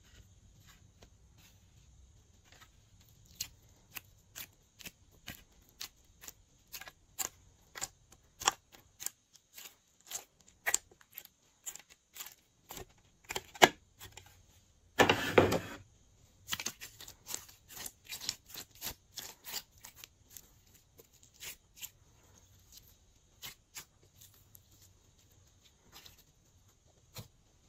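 Slime being squeezed and worked by hand, giving a run of sharp clicks and pops about twice a second, with one longer, louder burst about halfway through.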